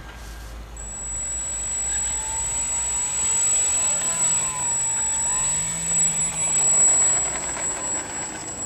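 Electric motor and propeller of a ParkZone F4U Corsair foam RC plane running up under throttle. A steady high whine comes in about a second in and the level climbs, while the motor's pitch rises and falls with the throttle.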